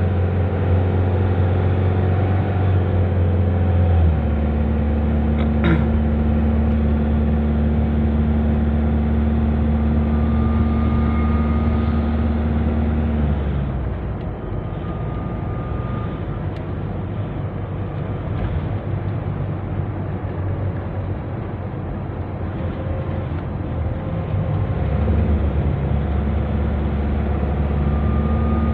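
Nissan NV350 van driving at highway speed, with a steady engine drone over road noise. The drone's pitch steps up about four seconds in, fades to mostly road noise around halfway, and comes back near the end. The van is on a road test after repair, checking for an abnormal noise.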